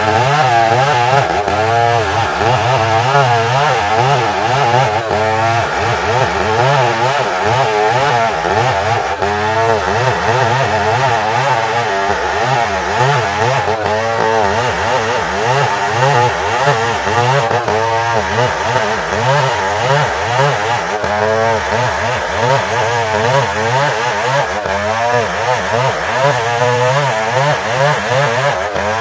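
Old two-stroke chainsaw held at full throttle, rip-cutting lengthwise along a long ulin (Bornean ironwood) beam. Its engine pitch wavers continuously up and down under the load of the cut, with no break.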